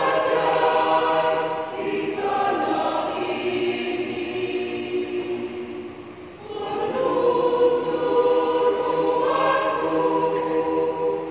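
A choir singing sustained chords, with a short break between phrases about six seconds in.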